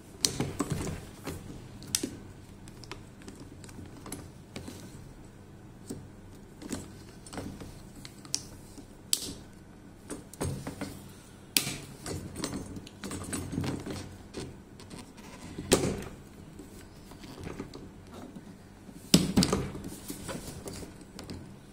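Irregular plastic clicks, knocks and rubbing as two rods are forced into a stiff new rubber-bush clip on a plastic knapsack sprayer tank. The loudest knock comes near the end.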